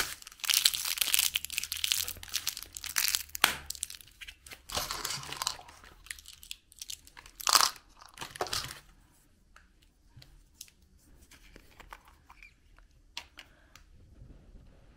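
Clear plastic wrapper crinkling and tearing as a small candy is unwrapped by hand. From about nine seconds in, only sparse, quieter clicks of small plastic toys being handled.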